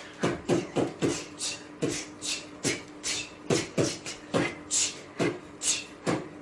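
A person sneezing over and over in rapid short bursts, about two to three sneezes a second, each a quick falling voiced sound with a sharp hiss.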